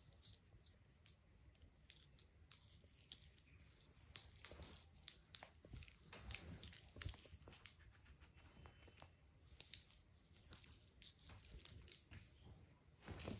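Shoelace being flicked and dragged across a stone tile floor: faint, irregular light scrapes and ticks, busiest from about four to eight seconds in.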